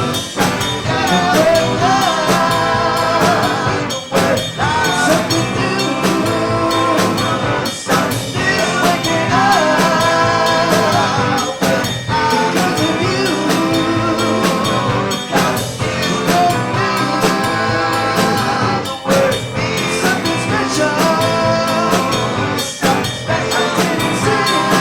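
A live rock band playing through a song in rehearsal: drum kit, amplified instruments and singing.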